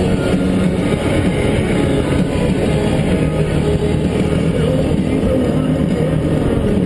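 ATV engine running steadily while riding, heard through a GoPro's microphone with a dense low rumble.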